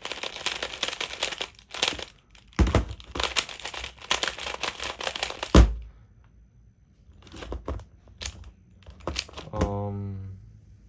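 Plastic tiles of a 3x3 Rubik's Cube sliding puzzle being slid and clicked rapidly into place: a dense run of clicks and rattles for about six seconds, then a few scattered clicks.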